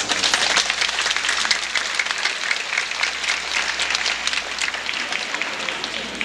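Audience applauding, starting suddenly as the singing stops, loudest in the first couple of seconds and then slowly dying down.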